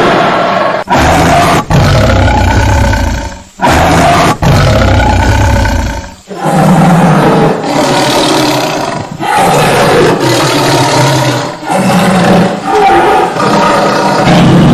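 Tiger roaring repeatedly: a series of loud, deep roars with short breaks between them.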